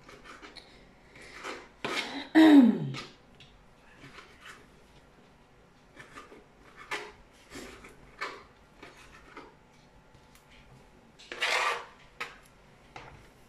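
Kitchen knife chopping sun-dried tomatoes on a plastic cutting board: irregular light taps of the blade on the board. About two and a half seconds in comes a loud short sound that drops in pitch, and about eleven seconds in a louder scraping rasp of the knife against the board.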